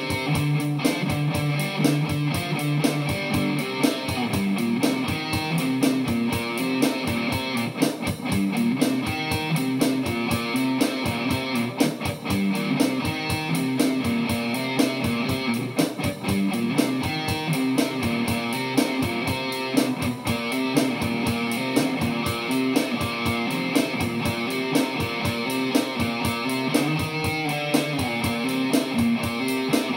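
Band music: strummed guitars over a steady drum beat.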